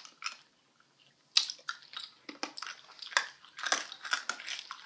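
Chewing and crunching of hard fruit candies: irregular crisp crunches and mouth clicks, with a short pause about half a second in.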